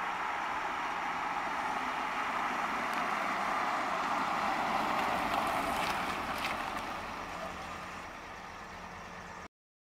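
1961 Ford Galaxie Sunliner convertible driving past: engine and tyre noise swell as it approaches, peak about five seconds in, then fade as it moves away, cutting off abruptly near the end.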